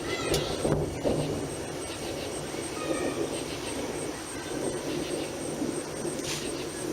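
Thunder rumbling low and steadily during a thunderstorm.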